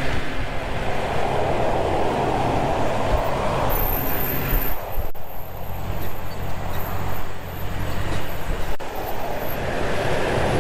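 Slow-moving interstate traffic heard from a pickup towing a trailer: a steady low engine drone with a rushing noise over it, which briefly cuts out twice.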